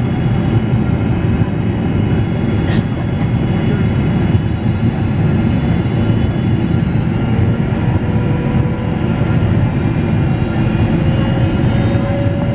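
Steady cabin noise inside a Boeing 777-300ER airliner: a deep rush of airflow and GE90 jet engine noise. A faint steady whine comes in near the end.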